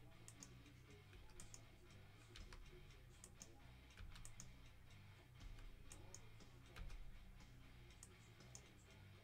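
Faint clicking of a computer mouse, several scattered clicks, as a list is re-randomized over and over.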